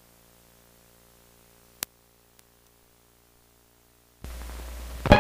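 Faint electrical hum, then a single click about two seconds in and a near-silent gap. A little past four seconds a louder low hum with hiss comes in, the noise of an old film soundtrack starting, and a pop sounds just at the end.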